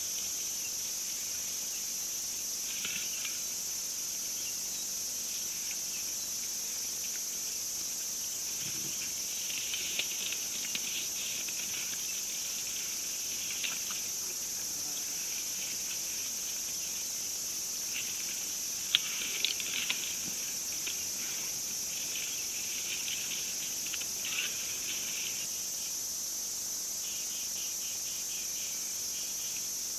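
A steady, shrill chorus of insects, with scattered short crackling and snapping sounds, loudest about 19 to 20 seconds in.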